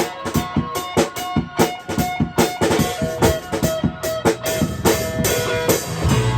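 Rock band playing live at rehearsal: a drum kit keeps a steady beat with cymbal hits under a ringing electric guitar line. About six seconds in, low bass notes come in and the band gets heavier.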